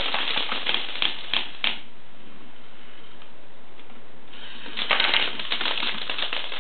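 Motor-driven K'nex machine gun firing small green K'nex rods in a rapid clatter of clicks, which stops for about two and a half seconds, then starts again and runs for about two more seconds. The gun stalls partway through its 32-shot load, a fault the builder thinks may need a new motor.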